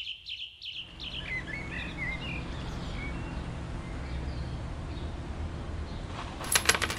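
Outdoor ambience track: bird chirps that fade out over the first couple of seconds, then a steady low background hum. A quick clatter of several sharp clicks comes near the end.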